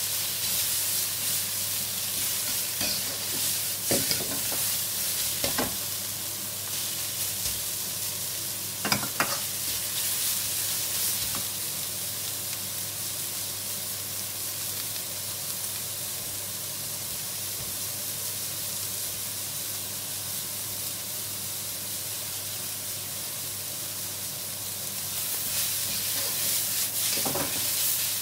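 Shredded carrots and mushrooms sizzling steadily in hot oil in a wok. A metal wok ladle scrapes and knocks against the pan as it stirs them, a few sharp clicks early on and about nine seconds in, then more stirring near the end. In between there is only the sizzle.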